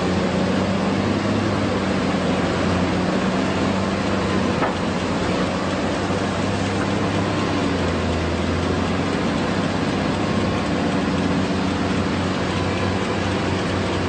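Diesel engine of heavy farm machinery running steadily at a constant pitch, a low even hum under a loud wash of mechanical noise.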